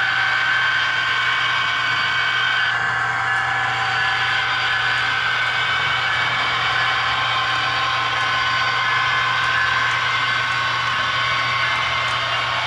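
HO-scale model diesel locomotive's Tsunami sound decoder playing a steady diesel engine drone through its small speaker, together with the running of the model hopper cars on the rails. Several steady high tones ride over a low hum.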